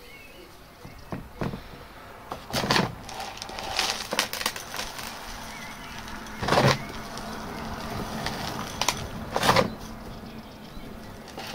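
Pumice grit pouring from a plastic container into a small terracotta bonsai pot, rattling in several short pours. The loudest come about halfway through and near the end.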